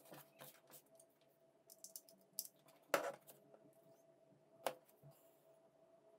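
A few faint clicks and knocks of plastic handling as a USB charging cable is plugged into a plastic airsoft-magazine power bank and a smartphone is set down on the table, the loudest knock about three seconds in.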